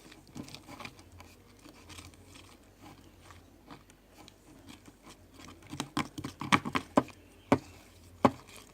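Clicks and knocks of small hard objects handled over a bowl while mixing slime. They start faint and sparse, grow louder and busier about six seconds in, and end with two single sharp clicks.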